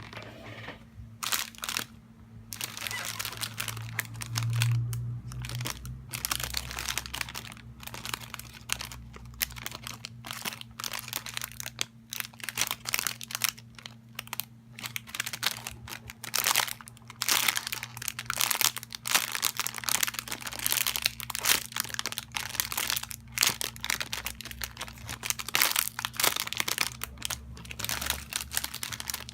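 Plastic wrapping crinkling and crackling in irregular bursts as it is handled, over a steady low electrical hum.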